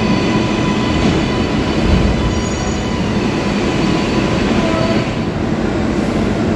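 New York City Subway R188 train running through an underground station: a steady rumble of wheels on rail under a high, steady whine. The whine fades about five seconds in.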